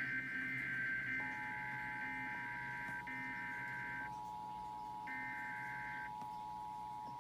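Emergency Alert System test signal. Screechy SAME header data bursts run for the first four seconds, with one more burst about five seconds in. The steady EAS two-tone attention signal comes in about a second in and holds under and after the bursts.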